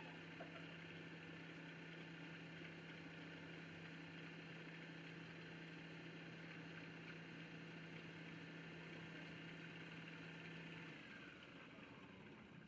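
Electric motor of a wood lathe running steadily, then switched off near the end, its pitch falling as it winds down.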